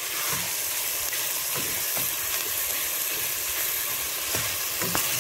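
Ground meat and diced onion sizzling steadily in hot oil in a metal pan as they are sautéed. A spatula stirs the meat, with a few faint knocks against the pan.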